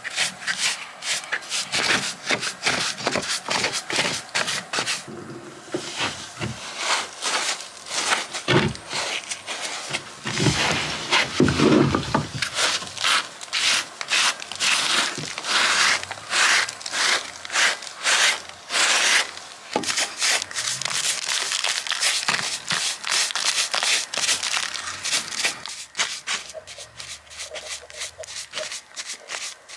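Rapid, repeated scraping strokes of a hand tool against the foot of a stone wall, clearing loose grit and debris, several strokes a second with a brief pause partway through.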